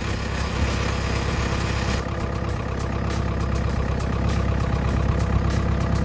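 Diesel engine of a JCB Robot 260T Eco tracked skid steer loader idling steadily, heard close up at the open engine bay.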